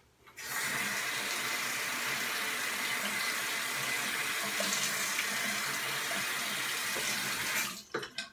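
Bathroom sink tap running steadily into the basin for about seven seconds, then shut off, with a few small knocks and splashes at the end.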